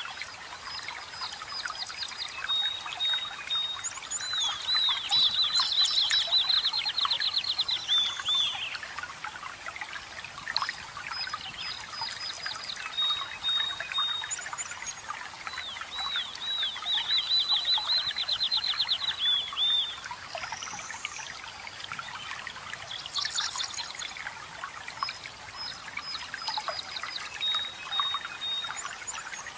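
Running water trickling steadily while forest songbirds sing. One bird twice repeats a long song of a held high note that breaks into a fast trill, and shorter high chirps come between the songs.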